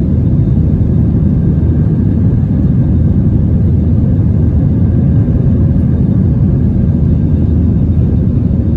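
Jet airliner's engines and airflow heard from inside the cabin: a loud, steady low rumble.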